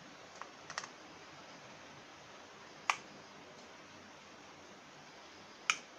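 Sharp clicks from a plastic wall switch board being handled and probed with a screwdriver-type line tester: a few light clicks under a second in, then two louder single clicks about three seconds in and near the end, over a steady hiss.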